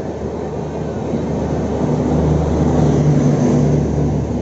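Double-decker express train running through the station on the adjacent track: a steady rumble of coaches and wheels on rail. A low droning hum swells to its loudest about three seconds in and eases off as the end of the train goes by.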